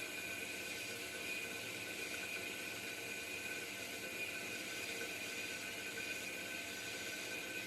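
Pilous semi-automatic metal-cutting bandsaw running steadily through 5-inch solid round bar stock: an even hissing whir with a steady high whine, unchanging throughout.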